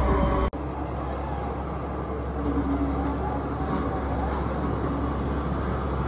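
Diesel engine of a single-drum road roller running steadily as the machine works over a loose dirt roadbed. About half a second in, the sound cuts off abruptly and comes back slightly quieter with less deep rumble.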